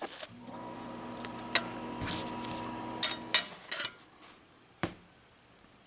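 Metal tools and parts clinking together several times while the jointer is reassembled, over a steady low hum that stops after about three seconds.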